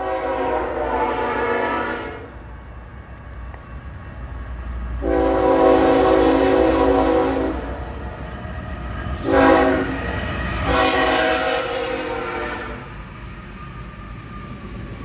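BNSF freight locomotive's air horn sounding the grade-crossing pattern of long, long, short, long blasts, over the low rumble of the approaching train.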